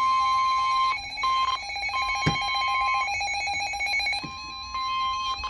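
Emergency Alert System attention signal: a loud, steady two-tone alarm whose higher tone drops out and returns several times, with a sharp click about two seconds in.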